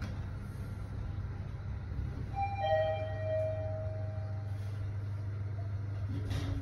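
A Mitsubishi Nexway high-speed elevator car travelling up with a steady low hum. About two and a half seconds in, the car's electronic chime sounds two notes, high then low, ringing for about a second and a half.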